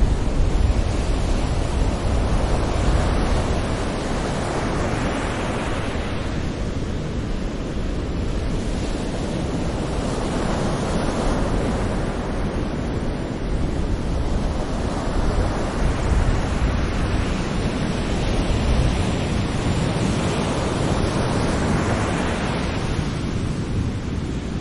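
Gentle sea waves breaking on the shore, the surf swelling and falling back every few seconds over a steady low rumble.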